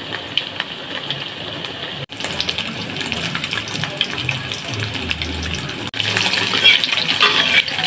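Hot oil sizzling and crackling in a wok, with many small pops, as battered tempeh and an egg omelette with shallot greens fry.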